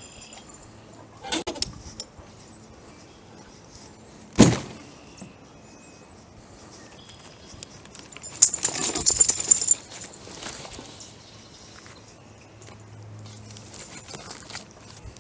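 Hand cart loaded with birch logs being moved over rough ground: scattered knocks, the loudest a sharp one about four and a half seconds in, and a metallic jangling rattle from about eight to nine and a half seconds in.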